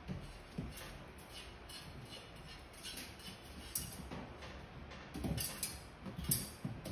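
A meerkat's paws and claws tapping and scraping on metal cage bars as it reaches through for kibble: scattered light clicks and clinks, with a cluster of louder ones about five seconds in.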